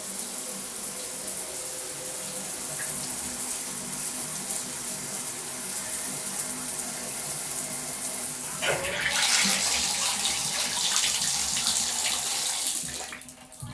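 Newly installed bathroom faucet running, water pouring and splashing steadily as it is tested. About two-thirds of the way through the flow gets louder and fuller, then it drops away sharply near the end as the water is shut off.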